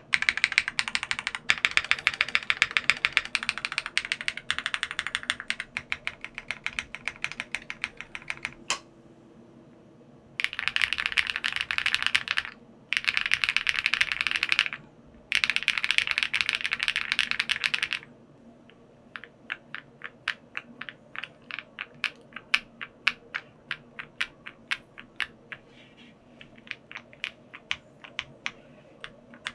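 Typing on a gasket-mounted 65% mechanical keyboard with factory-lubed BSUN Red Wine linear switches, PC plate and GMK keycaps. Fast continuous typing for the first several seconds, a short pause, three dense bursts of rapid keystrokes, then slower separate keystrokes a few a second.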